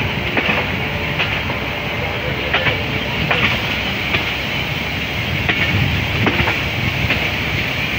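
Passenger train rolling slowly into a station, heard from the open doorway of a carriage: a steady rumble of wheels on rail, with sharp clacks, mostly in pairs, as the bogies cross rail joints and points every couple of seconds.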